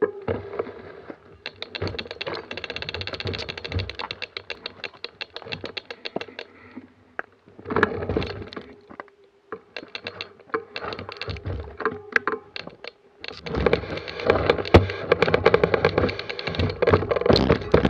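Mountain bike rear end over rough rock: rapid, even clicking from the rear freehub as the bike coasts, mixed with chain rattle and knocks from the frame and wheel. The clicking is thickest in the first few seconds and again in the last few, with a quieter spell around the middle.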